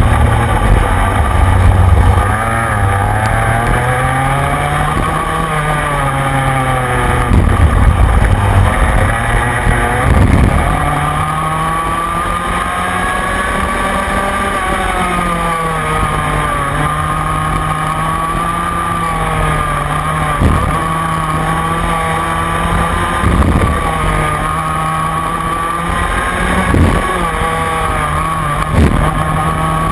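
Rotax Mini Max 125cc two-stroke kart engine at racing speed, heard onboard. Its note rises and falls every few seconds with the throttle through the corners, with several brief knocks along the way.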